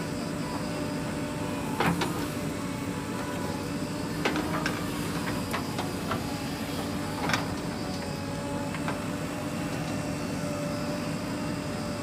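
JCB 3DX backhoe loader's diesel engine running steadily under load as the backhoe digs and swings soil, with a steady hum and a few sharp knocks. The loudest knock comes about two seconds in, with others near four and seven seconds.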